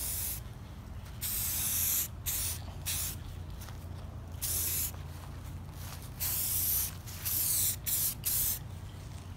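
Aerosol spray-paint can (Krylon Color Max) hissing in a series of short bursts, each lasting about half a second to a second, as green paint is sprayed onto plastic pieces.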